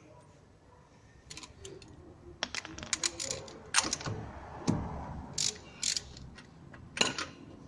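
Irregular metallic clicks and taps of hand tools working on a car's rear wheel hub, around the hub's retaining nut after the cotter pin has been pulled.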